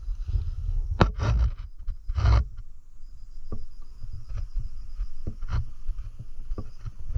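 Close rustling and knocks of gear and movement against the microphone, with a sharp click about a second in. From about three seconds in, insects chirr steadily in a faint, high, fast pulsing tone.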